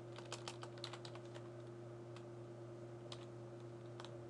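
Typing on a computer keyboard: a quick run of keystrokes in the first second or so, then a few single keystrokes spaced out, over a steady low hum.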